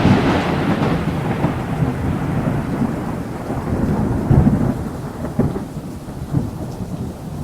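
Thunder rumbling and slowly dying away over steady rain, with the rumble swelling again a few times about four and a half to six seconds in.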